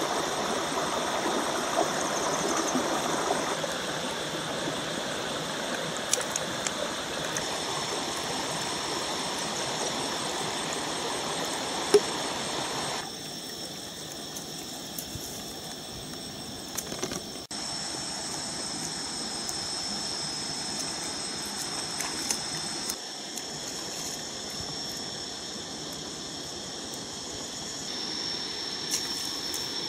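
Shallow river water running over flat rocks: a steady rushing hiss, strongest in the first few seconds, with scattered small clicks and a thin steady high tone above it. The level drops and rises abruptly a few times.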